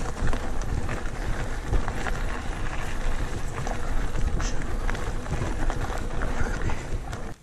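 GT Pantera Elite mountain bike rolling over a gravel dirt trail: tyres crunching on the gravel and the bike rattling with scattered clicks, under a steady rumble of wind on the microphone.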